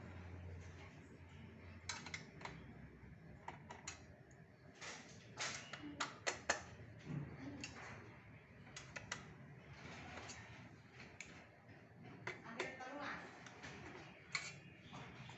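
Irregular clicks and taps of a screwdriver and hands working on the plastic casing of an all-in-one PC while its screws are removed.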